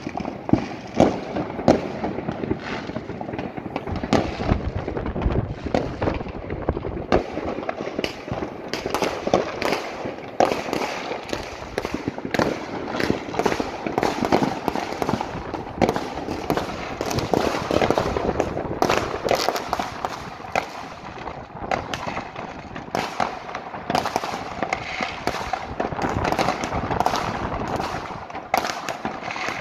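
Fireworks and firecrackers going off all over a city at once: a continuous barrage of bangs and crackling with no pause.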